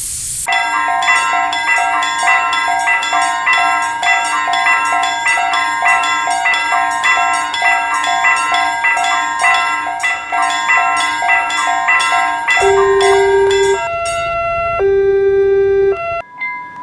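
Japanese railroad crossing alarm bell ringing its electronic 'kan-kan' at about two strokes a second. Near the end it changes to two long held tones of about a second each.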